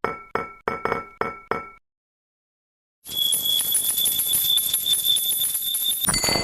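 Level crossing warning bell chiming in a steady 'kan-kan' rhythm, about three strikes a second, stopping a little under two seconds in. After a second's silence, a fast, continuous high-pitched ringing starts, cut off near the end by a single sharp ding.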